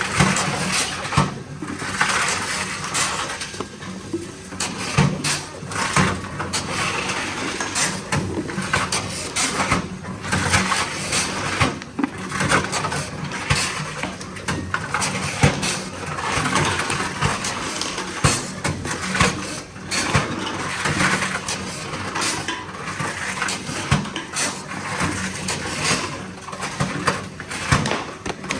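Tomra T-53 reverse vending machine taking in plastic bottles: its mechanism runs steadily, with repeated clatters and knocks as bottles are handled.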